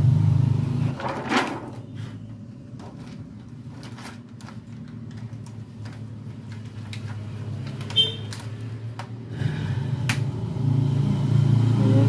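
Handling noise of a thin plastic reflector sheet being laid back over a TV's LED backlight strips: light rustles and scattered clicks, with sharper clicks about a second in and about eight seconds in. A low steady hum is loudest in the first second and returns from about nine and a half seconds.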